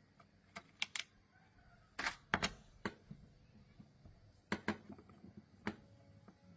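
Irregular sharp clicks and taps of hand tools and small parts being handled during a chainsaw repair, about a dozen separate strokes with the loudest pair about two seconds in. No engine is running.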